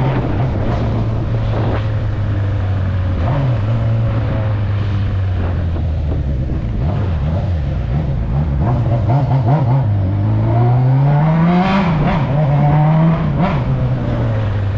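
Honda Hornet inline-four motorcycle engine running under way at a steady pitch. About two-thirds of the way through, the revs climb for about two seconds, then drop back and settle.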